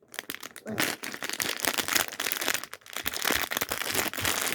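Lego advent calendar packaging being handled and torn, a continuous crinkling with many small irregular crackles.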